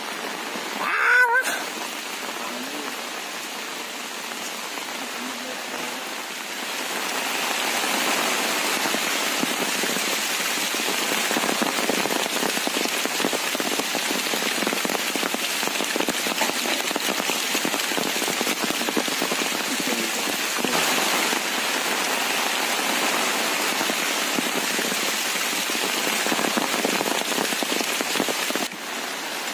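Heavy rain falling on a wet paved lane, a steady hiss of drops that grows louder about seven seconds in. A short vocal call cuts through about a second in.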